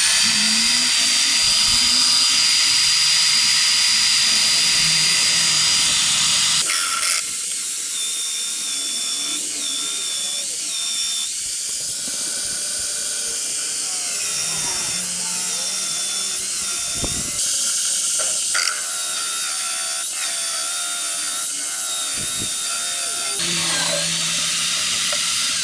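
A 1050 W electric hand drill, mounted in a drill stand, running steadily while it drives a hole saw into a block of wood. The motor's whine shifts in tone and gets slightly quieter about seven seconds in.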